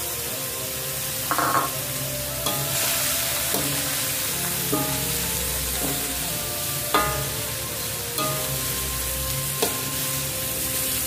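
Prawns and pineapple chunks sizzling in an aluminium wok, stirred and turned with a metal spatula that scrapes across the pan.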